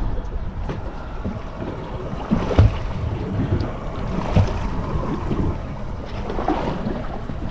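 Wind buffeting the microphone and choppy waves slapping against a boat's hull, with a couple of louder low thumps about two and a half and four and a half seconds in.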